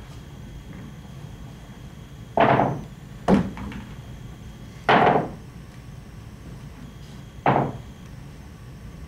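Pool balls knocked down onto the table one at a time as they are set out for shots: four sharp knocks with a short ring.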